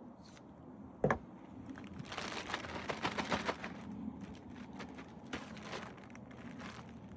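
A single knock about a second in, then a couple of seconds of dense crinkling and crackling handling noise, with a few scattered clicks after.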